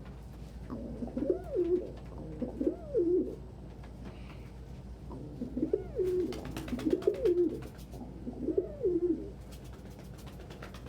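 Domestic pigeons cooing: about five rising-and-falling coos in two groups, with runs of quick sharp clicks in the second half.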